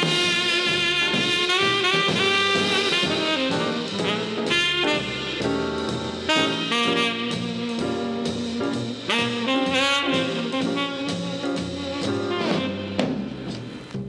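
Instrumental music: a sustained lead melody moving from note to note over a lower accompaniment.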